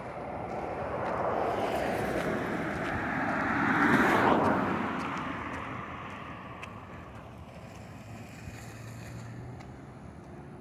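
A vehicle driving past, its tyre and engine noise growing louder to a peak about four seconds in, then fading away.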